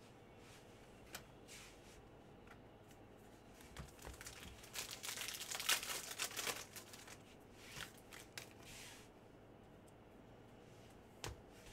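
Foil trading-card pack (Panini Prizm basketball) torn open and crinkled by hand: a few seconds of tearing and crackling about four to seven seconds in, with a few light clicks from handling the cards.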